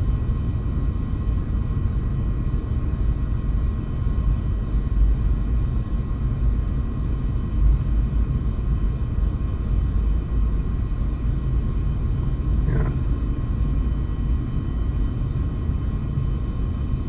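Steady low rumble inside a parked car's cabin, with faint steady high-pitched whines above it.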